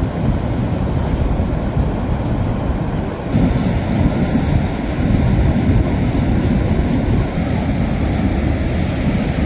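Wind buffeting the microphone over the steady rush of sea surf, growing louder about three seconds in.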